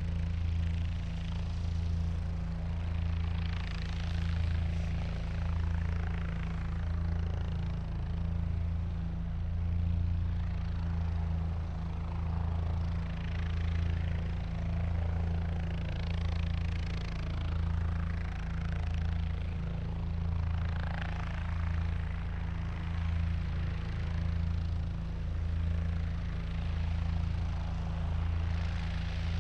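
Helicopter running on the ground: a deep steady hum of engine and rotor with a slow regular pulse, and higher rushing noise that swells every few seconds.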